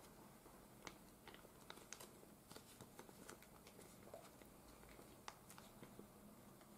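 Near silence, with faint scattered ticks and soft rustles: a plastic food pouch being handled and a utensil scraping the last meatball sauce out of it.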